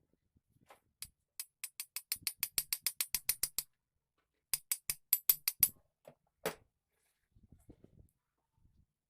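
Rapid, evenly spaced sharp clicks from hand-tool work on an angle grinder, about six a second. They come in a run of about two seconds, then a shorter run, then one single knock.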